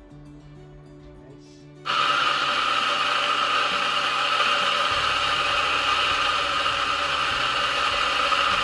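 DF64E 64 mm flat-burr coffee grinder running a timed electronic dose, a steady loud grinding whir that starts about two seconds in, over quiet background music.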